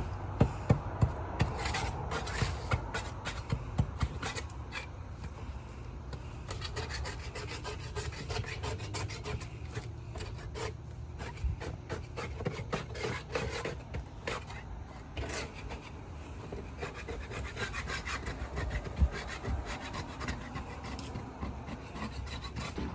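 Wood being scraped and knocked during deck work: irregular sharp taps and clicks over a steady scraping, busier in the first few seconds, with one louder knock near the end.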